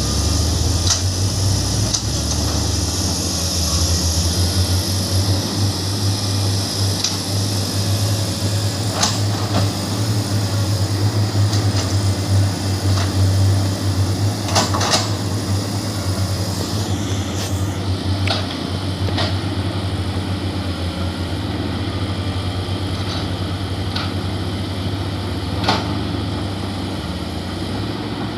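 Diesel engine of heavy construction machinery running steadily with a low hum, with a few sharp metallic clanks scattered through.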